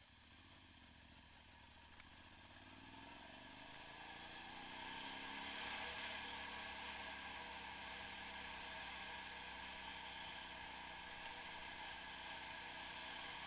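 Motorcycle engine pulling away from a stop, its pitch climbing over the first few seconds, then settling into a steady cruise, with a rushing noise that builds with speed.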